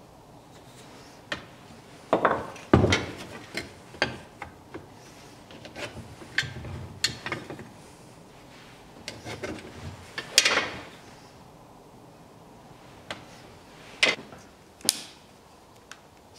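Irregular knocks, taps and short scrapes of hand tools on an oak block and a wooden workbench: a bradawl, pencil and plastic square being set down, picked up and used to mark out the block. The loudest knocks come about three seconds in and about ten seconds in.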